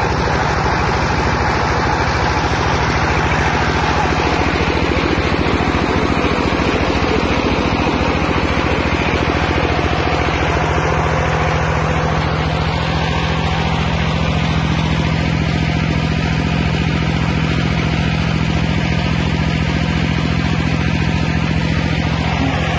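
Large-capacity peanut-shell grinding mill running steadily under its engine while milling shells, a constant mechanical drone with a rapid, even beat.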